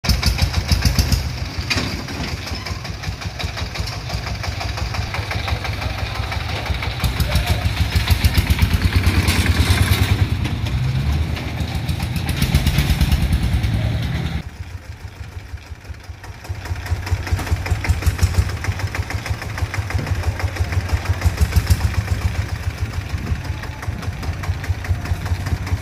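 Three-wheeled tractor dump truck's single-cylinder diesel engine running with a fast, even chugging beat. About halfway through it drops quieter for a couple of seconds, then picks up again.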